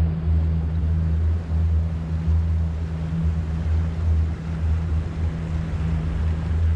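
Small boat's outboard motor running steadily under way, a constant low hum over a rush of water and wind.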